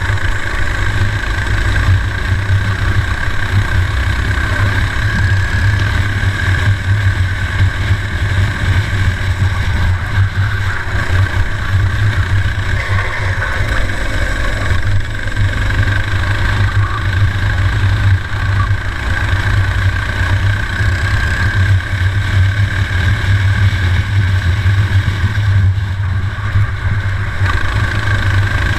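Four-stroke racing kart engine running hard at speed, heard from on board; steady throughout with only small rises and falls.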